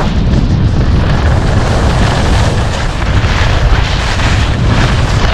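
Wind buffeting the microphone of an action camera carried by a skier going downhill, a loud, fluttering low rumble, over the steady hiss of skis sliding on packed snow.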